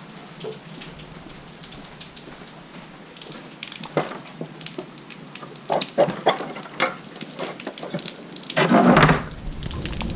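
Rain falling in a severe storm. Sharp, louder drop hits come more often from about four seconds in, and a loud rush of noise breaks in near the end.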